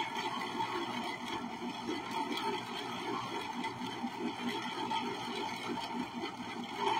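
Electric ice cream maker running steadily, its motor turning the paddle through a mix that is starting to freeze on the bowl walls, with faint scraping of a spatula inside the bowl.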